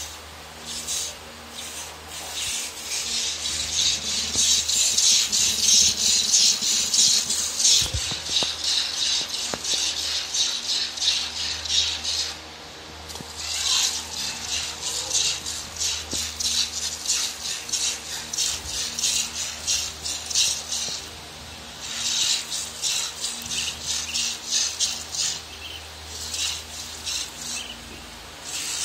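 Milk squirting from a goat's teats into a plastic bowl during hand milking: quick, rhythmic hissing squirts, several a second, in three runs with two brief pauses between them.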